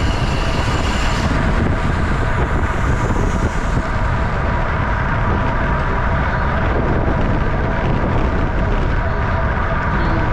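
Wind rushing over the microphone of a camera on a racing bicycle at about 30 mph, a loud, steady rumble with a faint steady hum from the tyres and drivetrain underneath.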